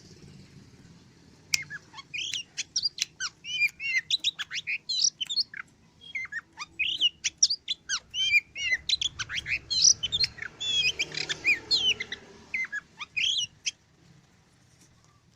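Oriental magpie-robin in full song: a fast, varied run of chirps, whistles and short trills that starts about a second and a half in and dies away near the end.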